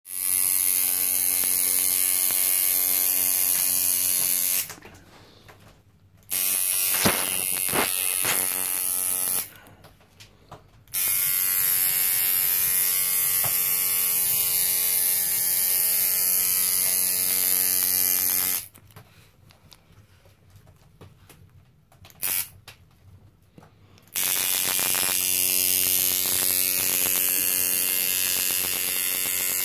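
Coil tattoo machine buzzing steadily as its needle inks the skin. It stops and restarts several times, with short pauses between runs.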